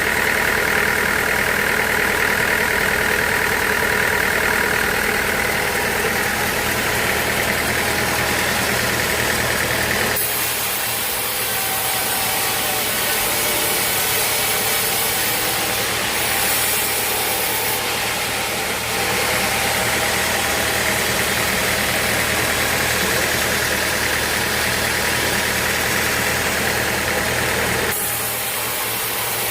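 Sawmill machinery's engine running steadily with a low hum. The sound changes abruptly about ten seconds in and again near the end.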